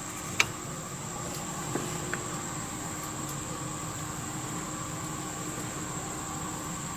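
A few light clicks of small wires being handled and twisted at a connector held in a vise, the first one the sharpest, over a steady hum with a high, even whine.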